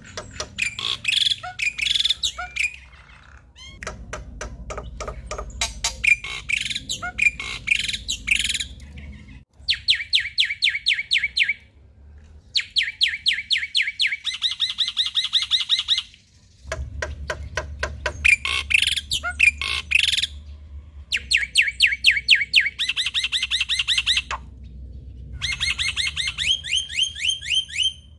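Male black-winged myna (jalak putih) singing hard: fast runs of sharp, evenly repeated chirps mixed with harsher squawky notes, broken by several short pauses.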